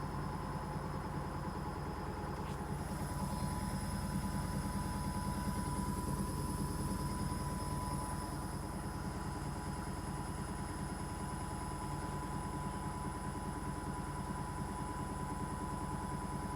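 Arçelik washing machine running out of control, most likely in a spin: a steady heavy rumble with a fast, even shaking throb and a constant high whine over it.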